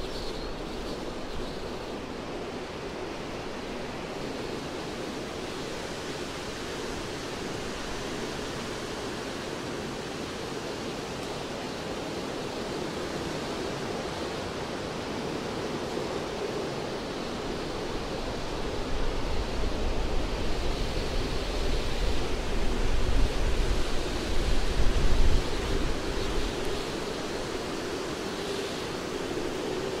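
Wind rushing steadily through forest treetops. A stronger gust in the second half brings a deep low rumble before easing again.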